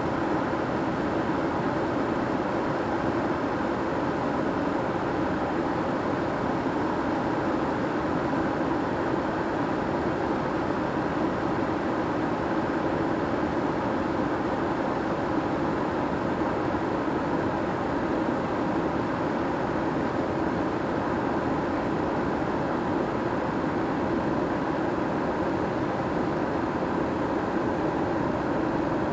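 Kettle heating water: a steady rumbling hiss of water churning inside it, with no whistle.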